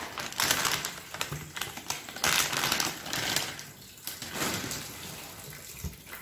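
Plastic product packaging crinkling and rustling as it is handled and lifted out of a cardboard box, in several spells with small clicks.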